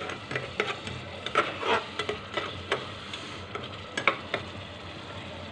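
A metal spatula stirring and scraping a sizzling tomato-onion masala in a pressure cooker pot: irregular scrapes and taps against the metal over a low frying sizzle. The strokes thin out after about four seconds, leaving the sizzle.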